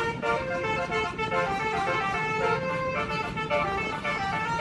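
Basuri telolet multi-tone bus horn playing a quick melody of stepped notes, over a steady low hum.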